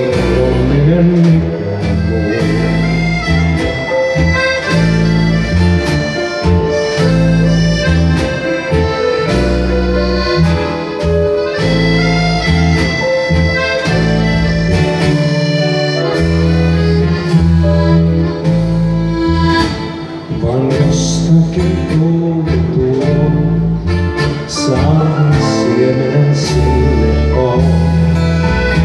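Piano accordion playing the melody of an instrumental break in a live band number, with acoustic guitar strumming alongside.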